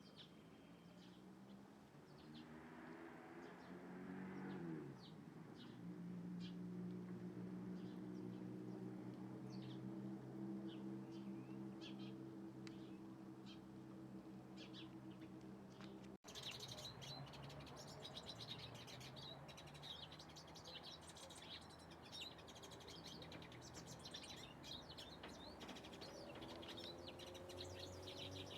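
Small birds chirping faintly, short high calls scattered throughout and coming more often after about the halfway mark, over a low steady hum.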